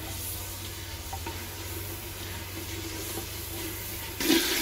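Onion-and-spice masala frying in oil in a clay handi, sizzling steadily while tomatoes are added and stirred in with a wooden spoon. The sizzling gets clearly louder about four seconds in.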